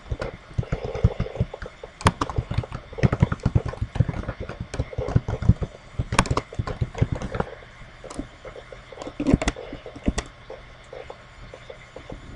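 Typing on a computer keyboard: a quick, irregular run of key clicks that thins out after about ten seconds.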